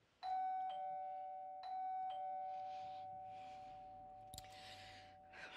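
Two-tone ding-dong doorbell chime rung twice in quick succession, a higher note then a lower one each time, the tones ringing on and slowly fading. Someone is at the front door.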